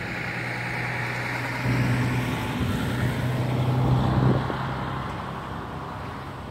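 A motor vehicle passing on a nearby road. Its low engine hum and tyre noise swell to a peak about four seconds in, then fade away.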